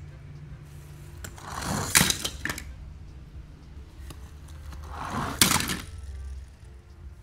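Toy cars rolling down a plastic ramp and dropping into a cardboard box of other toy cars, twice: each a rising rolling rush that ends in a sharp clatter as the car lands on the pile.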